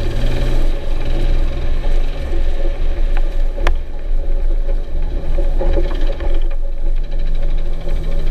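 1997 Jeep TJ's 4.0-litre straight-six engine running under way, its speed shifting a few times, with a rapid rhythmic knock that the owner cannot place between the engine and the transmission. A single sharp click comes about three and a half seconds in.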